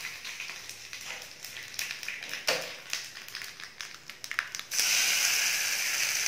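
A tempering of mustard seeds, urad dal, cumin and curry leaves crackling and popping in hot oil in a small tadka pan. About two-thirds of the way in, a loud steady sizzle starts as the hot oil and spices are poured onto the ginger chutney.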